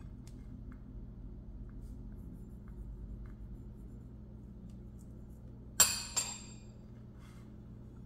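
Faint rubbing of a rice-paper wrapper being rolled by hand on a wooden cutting board. About six seconds in, a metal spoon clinks twice against a small bowl of egg white, the second clink softer.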